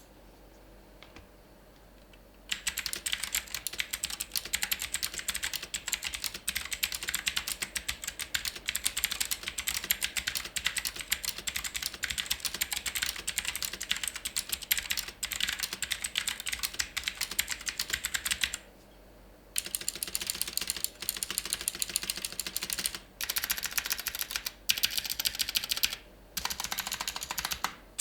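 HP GK200 tenkeyless mechanical keyboard with clicky blue switches being typed on fast, a dense rapid run of key clicks. The typing starts after about two and a half seconds of quiet and stops for about a second roughly two-thirds of the way through, with a couple of short breaks near the end.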